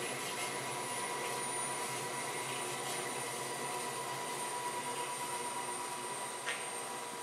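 Esmach SPI Mini spiral mixer running empty on its timed automatic cycle: a steady motor and drive hum with a faint high whine. A short click about six and a half seconds in.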